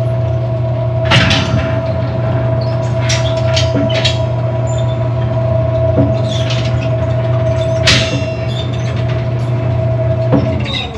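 Shop machinery running with a steady low hum and a steady whine; the whine cuts off with a knock near the end. Scattered metal clanks and knocks come through it.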